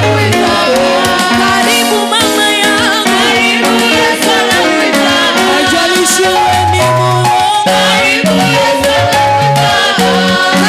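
Gospel worship band music: a bass line stepping between low notes under dense sustained chords, playing steadily throughout.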